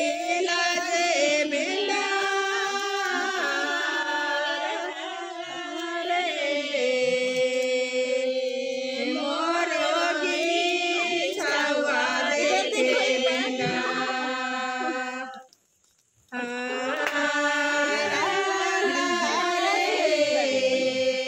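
Singing voices carrying a slow melody with long held notes. The singing stops for under a second about fifteen seconds in, then picks up again.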